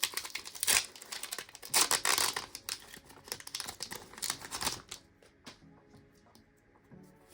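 Foil booster-pack wrapper crinkling as a Pokémon card pack is handled and torn open, in a run of loud crackly bursts that stop about five seconds in. Faint background music underneath.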